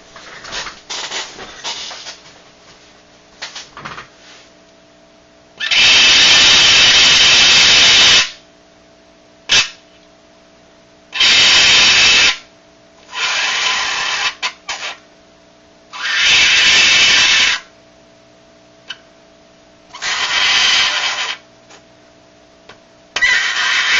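Metal coin pressed onto dry ice, buzzing and squealing loudly in six bursts of about one to two and a half seconds each, with faint taps and clicks before the first burst and between them. The coin vibrates as the dry ice under the warmer metal turns to gas.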